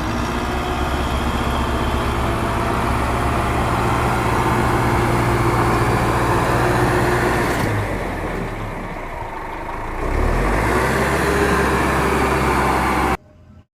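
An engine running steadily at idle. It eases off for a couple of seconds, picks up again about ten seconds in, then cuts off suddenly near the end.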